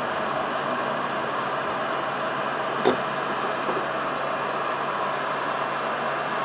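Heat gun running steadily, a constant rush of fan-blown air, aimed at an aluminium RC engine case to heat it and loosen its bearing. A single sharp click about three seconds in, and a fainter one shortly after.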